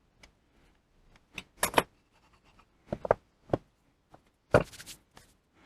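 Sharp metallic clinks and a brief rattle of small steel parts and tools being handled while reassembling a lathe apron, several separate knocks in a row.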